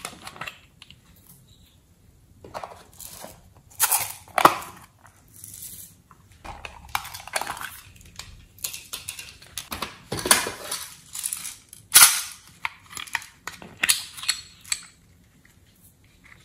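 Small hard-plastic toy cases being handled and clicked open: a run of sharp plastic snaps and clacks, with lighter rattling and scraping of small plastic pieces between them.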